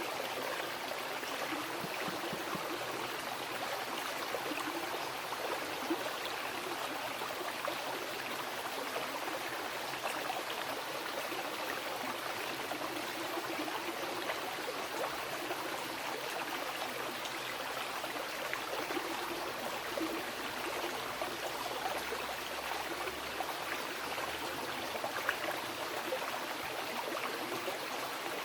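A wild river flowing: a steady, even wash of running water with fine splashing texture throughout.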